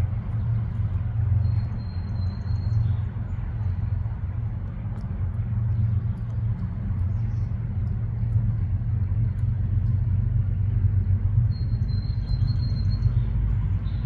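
Low, steady outdoor rumble with a thin, faint high tone twice, about two seconds in and again near the end.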